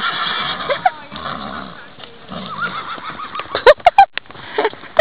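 A horse whinnying: a quavering call of rapid pulses a little over two seconds in, followed just before four seconds in by a few loud, short sounds close by.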